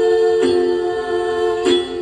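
Then singing with đàn tính lutes: the group holds a final sung note over the lutes, with two strums about a second and a quarter apart, and the music stops right at the end.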